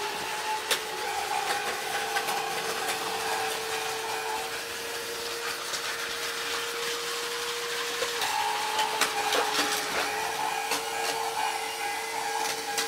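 Battery-powered Plarail toy train running on plastic track: a steady small-motor whine that shifts slightly in pitch about eight seconds in, with scattered clicks and clacks.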